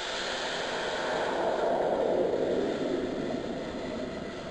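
Blended tomato puree poured into hot oil and frying green onion in a steel pot, sizzling and splashing. The hiss starts suddenly as the pour begins, swells, then eases slowly.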